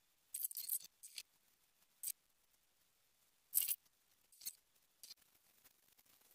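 Faint, scattered short clicks and rustles, about six of them spread over several seconds with near silence between.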